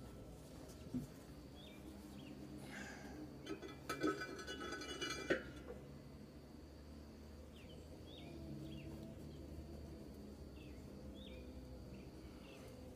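Steel disc-harrow blades clinking against each other and the gang shaft as one is set onto the stack: a few knocks with a high metallic ringing between about three and five and a half seconds in. Birds chirp in short calls throughout.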